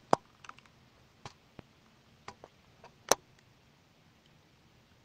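Scattered light clicks and taps, about eight of them, the loudest about three seconds in, from small craft items being handled on a work table.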